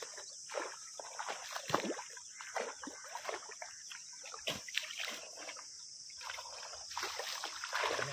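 Irregular splashing and sloshing of shallow, muddy water as fish are caught with a hand net, in short uneven splashes. A steady high insect drone runs underneath.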